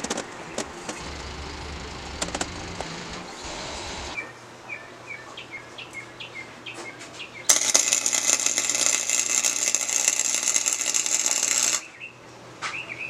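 Metal clinking as steel engine timing chains and gears are handled. Then, about halfway through, a MIG welder's arc starts suddenly and crackles and hisses loudly and steadily for about four seconds before cutting off.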